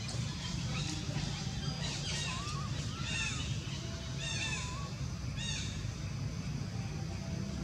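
About four short calls, each rising then falling in pitch, over a steady low hum.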